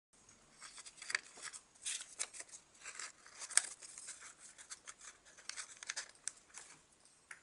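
Origami paper being handled and folded by hand: irregular rustling and crisp crackles of the creased sheets, the sharpest crackle about halfway through.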